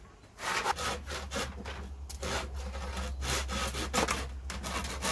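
Handsaw crosscutting an upright pallet-wood post with quick back-and-forth strokes, about two to three a second, starting after a brief pause at the beginning.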